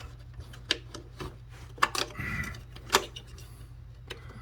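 Scattered sharp clicks and knocks of plastic intake parts being worked loose by hand while a mass airflow sensor is pulled from its housing, about half a dozen over a few seconds, over a low steady hum.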